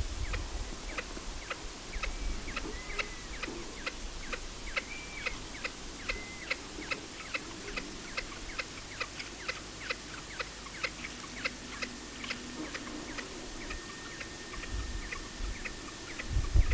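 Greater kudu bull drinking, a regular run of small clicking sips about two to three a second. A few short bird chirps come in the first half, and a thin steady whistle near the end.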